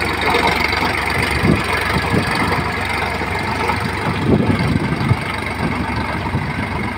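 Sonalika tractor's diesel engine running steadily under load while driving a rotavator that churns through dry soil, with a few irregular low thumps about a second and a half in and again past the middle.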